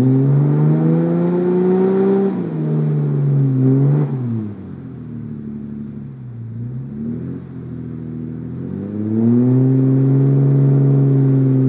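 Toyota Landcruiser 80 series engine revving hard under load on a steep hill climb. The revs hold high, fall away to a low, quieter run about four seconds in, then climb and hold high again from about nine seconds. It is working against near-zero traction on slick wet clay.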